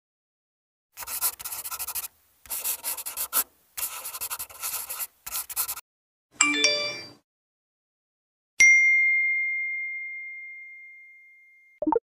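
A pencil writing on paper: several stretches of quick, scratchy strokes lasting about five seconds. Then a short phone-notification chime, and about two seconds later a single bright ding, the loudest sound, that rings out and fades slowly over about three seconds.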